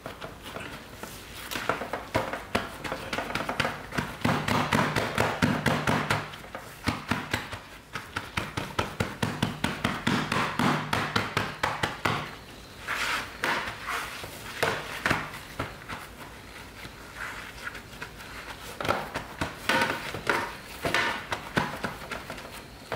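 Rubber-gloved hands patting and slapping a mound of mashed soybeans into a meju brick on a metal tray: quick runs of soft knocks, several a second, broken by short pauses.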